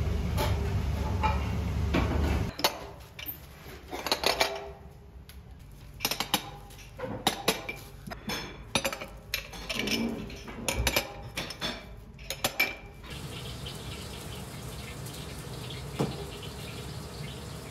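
Drinking glasses and tableware clinking and clicking against a table in a run of sharp knocks while tables are set and wiped, after a steady low hum at the start. Near the end it settles into a quieter steady background with a single knock.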